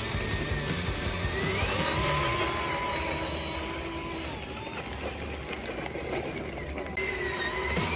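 High electric whine of a radio-controlled construction machine working, its pitch rising and falling with load, over a low mechanical rumble.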